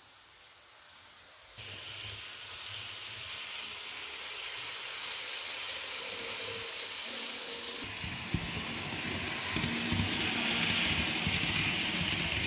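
Model train running on its track, heard close up: a steady rolling hiss that starts suddenly and grows louder. From about two-thirds of the way in, low rattling knocks come with it.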